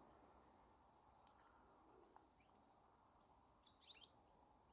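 Near silence: faint outdoor ambience, with a few faint, short, high bird chirps about four seconds in.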